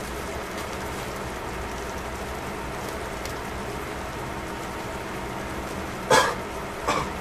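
Fish fillets sizzling on aluminium foil as they grill, a steady rain-like hiss. Two short, louder sounds come about a second apart near the end.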